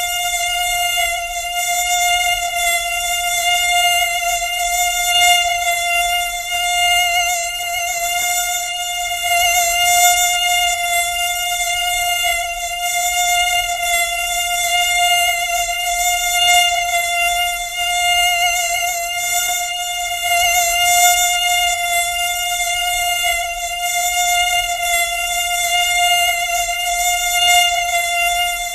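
Mosquito whine: a continuous high-pitched buzz held at one steady pitch, wavering slightly in loudness.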